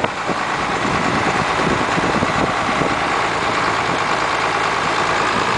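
Tractor engine running at a steady idle.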